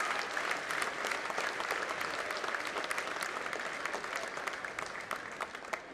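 Crowd applauding, a dense patter of many hands clapping that slowly dies away toward the end.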